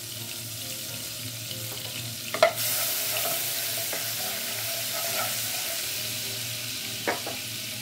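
Melted margarine and cooking oil sizzling in a stainless steel pot while being stirred with a wooden spatula. A sharp knock comes about two and a half seconds in, after which the sizzling gets louder, with another knock near the end.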